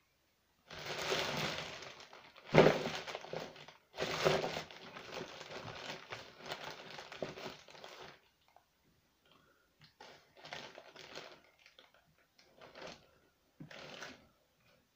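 Crinkly packaging being rummaged through and crumpled by hand, in bursts of rustling with two sharper knocks in the first few seconds, then fainter intermittent rustles.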